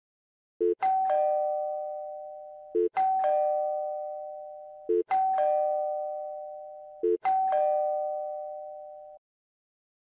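Electric doorbell chiming ding-dong four times, about two seconds apart. Each ring opens with a short low blip, then a higher tone and a lower tone that fade slowly.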